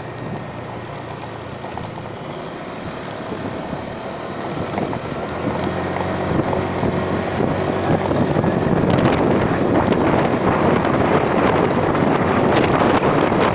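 A vehicle engine running steadily during a ride, with wind buffeting the microphone. The rushing noise grows louder from about halfway through.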